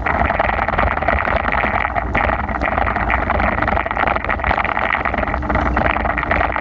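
Steady rushing noise of riding a bicycle through heavy rain, with a low rumble underneath. A faint steady hum joins about five seconds in.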